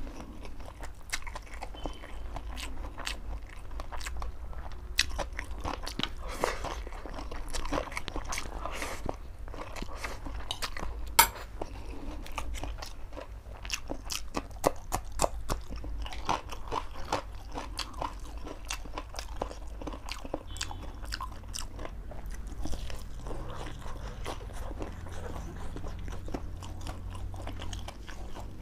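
Close-miked mouth sounds of a person eating chicken noodles: continuous wet chewing with irregular sharp mouth clicks and smacks, one click much louder about eleven seconds in. A low steady hum lies underneath.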